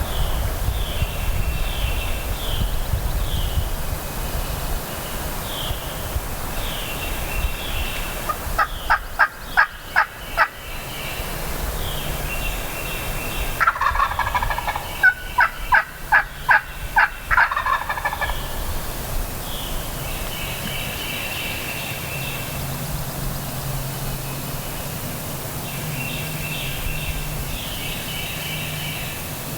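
Wild turkey calling: two loud runs of quick, sharp notes, one about nine seconds in and a longer one around fifteen seconds in, over wind noise.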